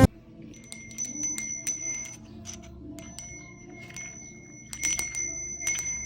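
Small metal bells on a macrame doorbell ringing as they are moved, with light clicks. Each ring is a high, clear tone that hangs on for a second or more; the first comes about half a second in and the second about three seconds in.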